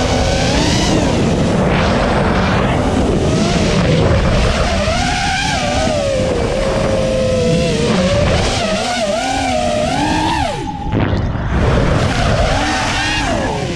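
Brushless motors of a 6-inch FPV quadcopter (Emax 2306 2750kv on Gemfan 5146.6 props) whining in flight, their pitch rising and falling constantly with the throttle, over wind rush. About ten and a half seconds in the whine glides steeply down and briefly drops away, then picks back up.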